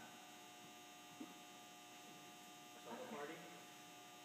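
Near silence: a steady electrical mains hum, with a small tick just over a second in and a brief faint murmur about three seconds in.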